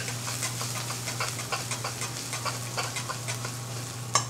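Ginger-garlic paste and sliced green chilies sizzling in hot oil in a steel karahi as they caramelize, stirred with a metal spoon that scrapes and clinks against the pan, over a steady low hum. Near the end come a few sharper clinks of the spoon on the pan.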